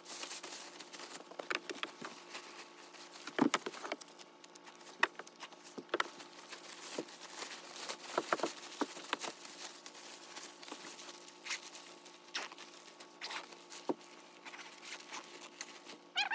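Rustling and crinkling of a Slumberjack Contour bivy sack being spread out and crawled into, with scattered scrapes and a few sharper knocks against the wooden deck.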